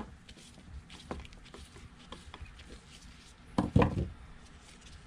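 Small clicks and taps of tools and plastic carburetor parts handled on a wooden workbench. There is a sharp click at the very start and a louder clatter about three and a half seconds in, as parts and a screwdriver are set down.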